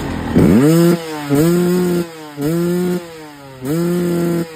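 Two-stroke enduro motorcycle engine being revved in four quick throttle blips, each rising sharply, held briefly, then falling back to idle. The bike has just had its carburettor needle swapped for the leanest one to cure running too rich, and it now runs about normally.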